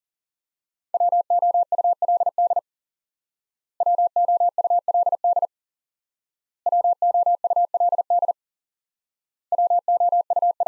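Morse code tone near 700 Hz sending the word "would" four times at 40 words per minute: four quick runs of dits and dahs, each about a second and a half long, with about a second of silence between them.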